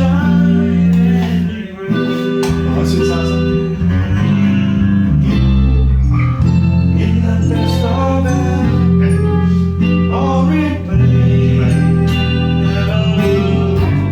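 A band playing a song on electric bass, guitar, drums and keyboards, with held bass notes changing every second or two under a steady drum beat.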